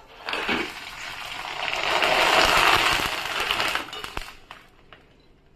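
Dried wheat papad sizzling in hot oil in a wok as it deep-fries. The sizzle builds over about two seconds, holds, then dies away about four seconds in, with a few sharp clicks near the end.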